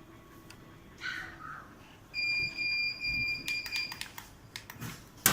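Electroacupuncture stimulator beeping: a high electronic tone pulsing for about two seconds, starting about two seconds in. Light clicks follow, then a sharp knock at the very end.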